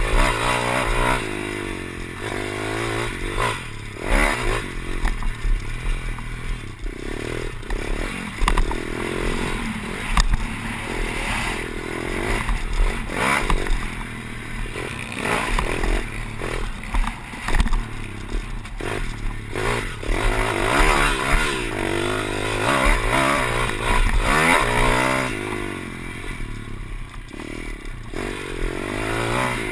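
Pit bike engine revving up and down again and again as it is ridden hard over a rough dirt track. Rattles and knocks come from the bike jolting over the bumps.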